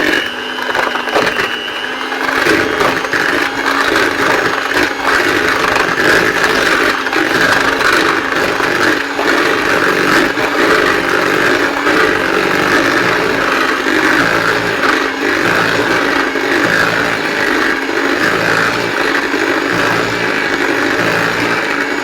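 Electric hand whisk running steadily, its beaters churning and rattling through caster sugar and low-fat spread as they are creamed together in a mixing bowl.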